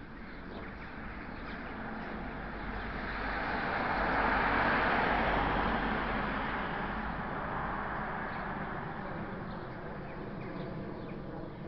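A car driving past on the road, its tyre and engine noise swelling to a peak about four to five seconds in and then fading away. Faint bird chirps sound over it.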